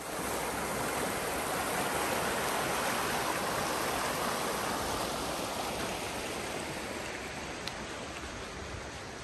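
Rushing water, a steady hiss that comes in suddenly, is loudest a few seconds in, then slowly fades.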